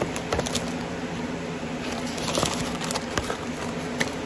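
Handling of a cardboard lash box: scattered light taps and rustles, with a brief rustle about two and a half seconds in, over a steady low hum.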